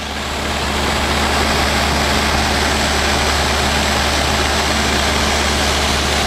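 Luscombe light airplane's engine and propeller droning steadily in cruise, heard inside the cabin with a strong low hum; the sound fades in over the first second.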